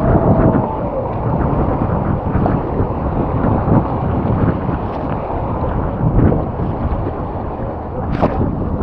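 River whitewater rushing and splashing around a kayak running a grade 2+ rapid: a loud, continuous rush with many small splashes and wind buffeting the microphone. A sharper splash comes near the end.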